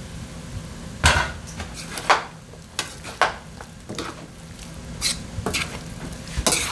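Kitchen utensils and dishes clattering: a series of separate knocks and clinks, about eight in the space of a few seconds, over a low steady hum.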